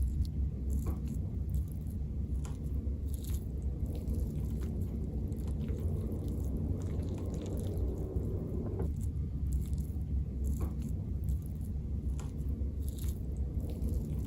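Microwave oven running with a steady low hum, with scattered small clicks and crackles over it.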